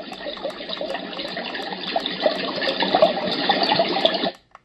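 Renpho sleep sound machine playing a running-water sound, turned up to full volume so it grows louder over the first three seconds, then cutting off suddenly about four seconds in.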